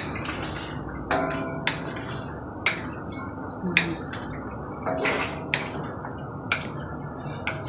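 Wooden spatula scraping and knocking against a steel wok, several times, as tempe and quail eggs are stirred through kecap manis and oil. Under it a steady low sizzle of the sauce cooking down with little water left.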